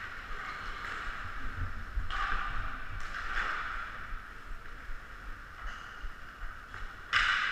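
Echoing background noise of an inline hockey game in a large hall, with skate wheels rolling on the plastic floor, rising and falling. It swells a little about two and three seconds in, and a sudden louder clatter comes near the end.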